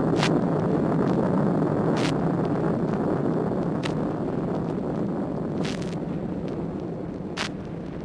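Rocket launch roar from a vinyl sound-effects record: a deep, noisy rumble that slowly fades. A faint click recurs about every two seconds, once per turn of the 33⅓ rpm record, a mark on the vinyl.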